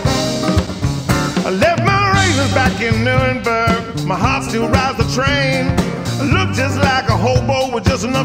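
Live band music: a man singing over a strummed acoustic guitar, with bass and a steady drum beat.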